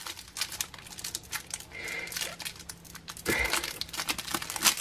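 Foil wrapper of a Match Attax card pack crinkling and rustling in the hands, a stream of irregular crackles that grows louder a little past halfway.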